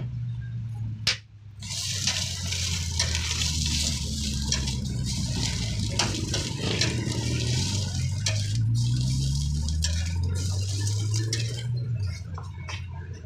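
Egg-coated kabab patty sizzling in oil on a hot flat iron griddle, with a steel spatula clinking and scraping on the plate. The sizzle swells about two seconds in, just after a sharp clank, and eases near the end, over a low hum.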